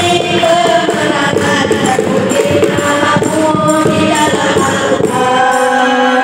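Boys' nasyid group singing, a lead voice carrying the melody with other voices joining, over a steady percussion beat.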